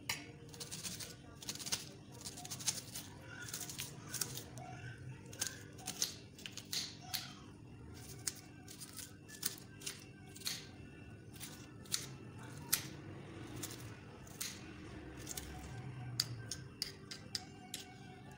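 Kitchen knife chopping a red onion, the blade tapping sharply and irregularly against the countertop, a few strokes a second.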